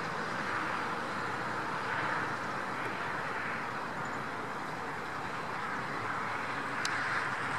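Steady rushing outdoor background noise that swells and eases every couple of seconds, with one brief sharp click near the end.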